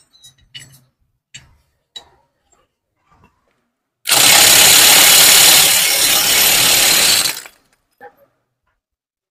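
Electric impact wrench running for about three seconds, starting about four seconds in, tightening the clutch centre nut. A few light clicks of metal parts being handled come before and after it.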